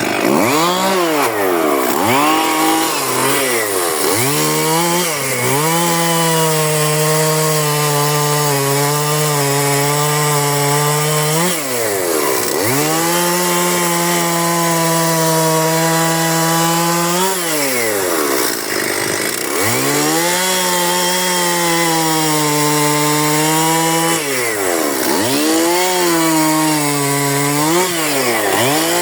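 Partner 411 two-stroke chainsaw running, revved up and held at high revs for several seconds at a time, dropping back and blipping up again in between.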